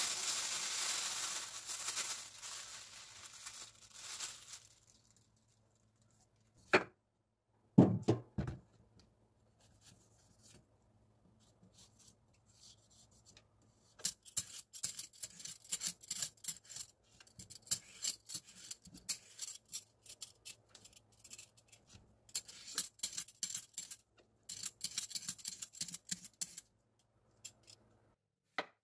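Black plastic bag rustling as a Korean radish is pulled out of it, dying away after about four seconds, then two short knocks. From about halfway on, a metal vegetable peeler scrapes the radish's skin off in quick repeated strokes, in two long runs with a short pause between.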